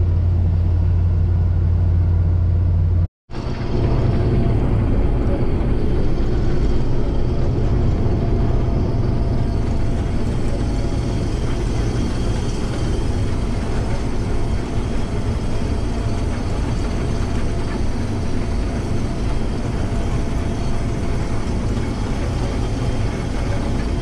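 Case IH 2188 combine harvester running steadily while harvesting, a continuous low machine drone of engine and threshing gear. A short drop-out about three seconds in gives way to a similar, slightly fuller steady drone.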